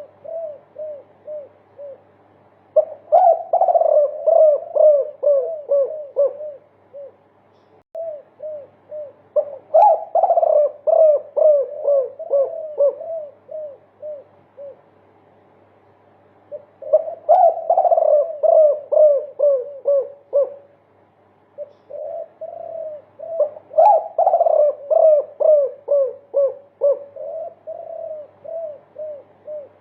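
Derkuku dove cooing in the multi-kuk style: long runs of quick, short coo notes, several a second, coming in repeated bouts a few seconds long with brief pauses between them.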